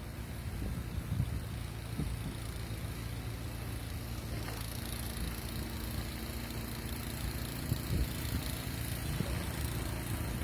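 An engine running steadily at idle, a low even hum with a few faint knocks.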